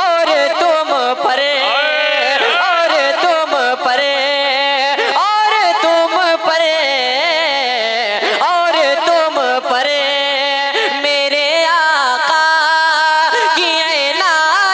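A young male voice singing a naat into a microphone, drawing out long ornamented notes that waver and glide in pitch.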